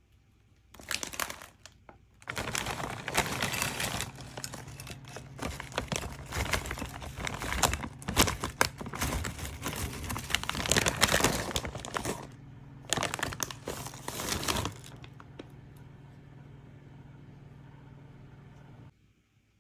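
Foil-lined Calbee Pizza Potato chip bag crinkling as wavy potato chips are shaken and poured out of it into a bowl, the chips rattling as they fall. The crinkling comes in bursts, with a short gap about 12 seconds in, and stops about 15 seconds in. A faint steady low hum stays on after it and cuts off near the end.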